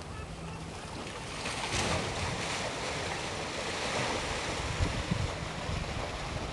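Sea washing against the rocks, a steady rush of surf, with wind buffeting the microphone. The rush grows louder about a second and a half in.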